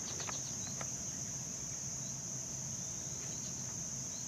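Steady high-pitched chorus of insects, with a few faint short ticks in the first second.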